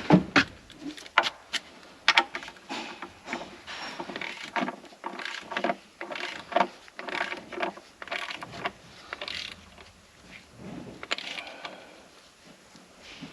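Hand ratchet clicking in short runs with scattered metal clinks, as the intake manifold bolts are run down in sequence before torquing.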